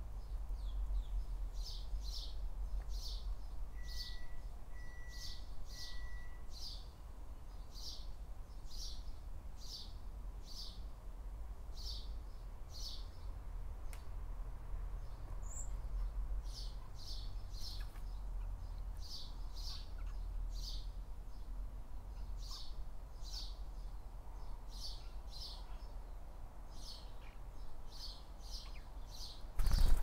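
Young blackbird begging with short, high, repeated chirps, about two a second, in runs with a pause near the middle, while its mother comes to feed it. A steady low rumble lies underneath, and a sudden loud thump comes at the very end.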